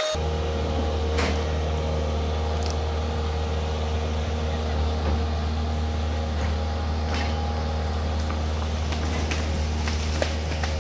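John Deere excavator's diesel engine running steadily as the machine raises its boom and pushes its bucket against a pine tree to knock it over. A few sharp snaps and cracks, more of them near the end.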